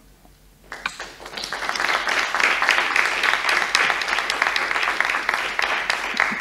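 Applause from a small group of people, starting about a second in, quickly building up and then continuing steadily.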